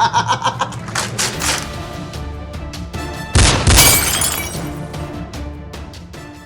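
Background music with a steady beat, broken about three and a half seconds in by a loud crash that fades away slowly.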